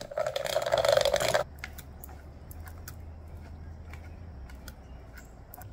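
Stainless-steel rotary food mill being cranked, its blade grinding and scraping guava pieces against the perforated plate to press out the pulp and hold back the seeds. This gritty grinding lasts about a second and a half, then gives way to a low hum with a few faint clicks.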